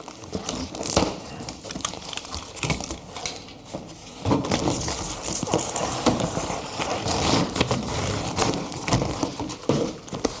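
Cardboard box of samples being opened and its packing handled: irregular crackling, rustling and knocks, busiest from about four seconds in.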